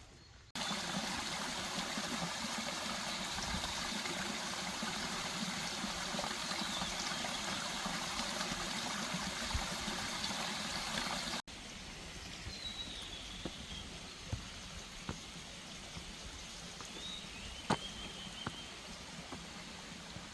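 Mountain stream rushing over rocks as a steady wash of water noise. About eleven seconds in it cuts abruptly to a quieter flow, with a few short high calls over it.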